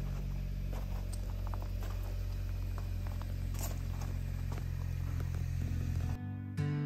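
Steady low hum of a running vehicle, with scattered light clicks and rattles. Music comes in near the end.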